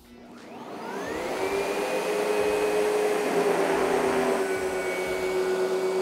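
SEBO Essential G4 commercial upright vacuum switching on, its motor rising in pitch over the first second or so, then running steadily while it is pushed onto a cloth to jam the brush roll. The tone shifts slightly about halfway through.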